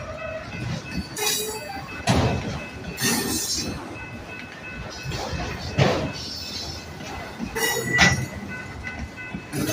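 Freight train of autorack cars rolling past, its wheels clanking over rail joints with loud bangs every second or two and a faint steady wheel squeal.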